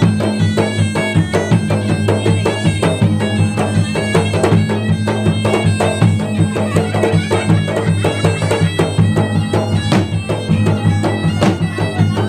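Bugis-Makassar gendang ensemble playing: gendang drums beaten in a fast, dense rhythm, with a large hanging bronze gong struck beneath them. A steady low drone runs under the drumming throughout.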